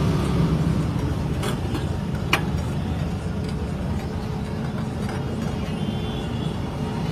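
Steady low background rumble, with two light clicks about one and a half and two and a half seconds in.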